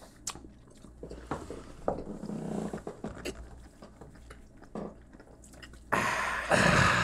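Close-up chewing of spaghetti and meatballs made with stink bugs, small crunches and clicks from the mouth. About six seconds in comes a sudden loud, breathy open-mouthed exhale.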